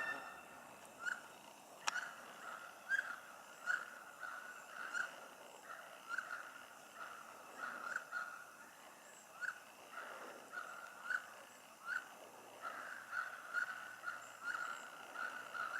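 Birds calling in woodland: a short call repeated about once a second over a faint steady chorus.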